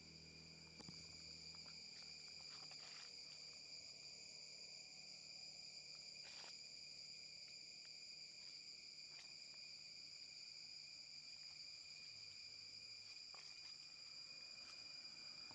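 Faint, steady high-pitched drone of insects calling, with a few soft clicks scattered through it.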